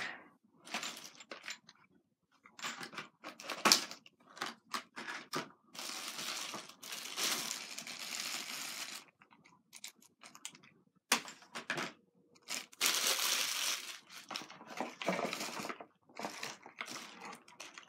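Boxes and packaging being handled and packed: rustling and crinkling with scattered clicks and knocks, including two longer stretches of crinkling, one in the middle and one about two-thirds of the way through.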